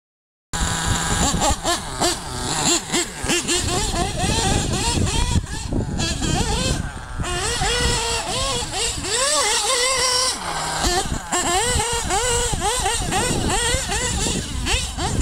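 LRP ZR.32 nitro engine of a 1/8-scale RC truggy, fitted with a tuned pipe, revving up and down over and over as the truck is driven, its pitch rising and falling in quick sweeps. It starts about half a second in.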